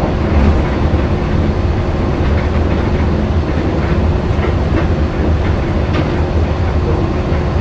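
Walt Disney World monorail running, heard from inside the car: a steady low rumble with a constant hum over it and faint light ticks.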